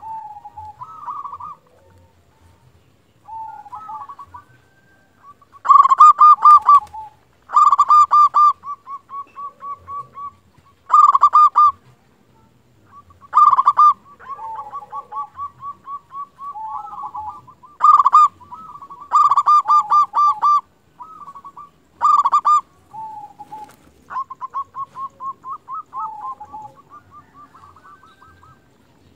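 Zebra dove (perkutut) cooing over and over: about a dozen phrases a second or two apart, each a quick stuttering run of notes that often trails off into a string of softer, evenly spaced notes, some phrases much louder than others.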